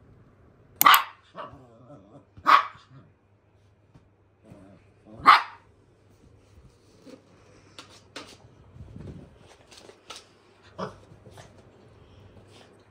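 Small Maltipoo (Maltese and toy poodle cross) dog barking: three loud, sharp barks within the first five or so seconds, followed by a scatter of quieter short clicks and sounds.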